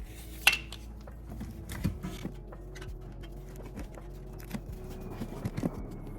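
Metal hand tools and brake parts clinking and clicking as the rear caliper and brake pads are worked on. The clicks are irregular, and the loudest is a sharp metallic clink about half a second in.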